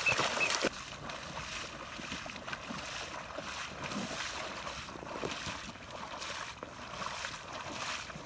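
Splashing through shallow water: a dog bounding through the water for the first moment, then a person in waders wading with repeated sloshing strides.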